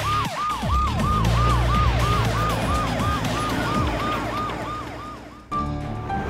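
Police car siren sound effect yelping in fast repeated falling wails, about three a second, over a low rumble. It fades away and stops about five and a half seconds in.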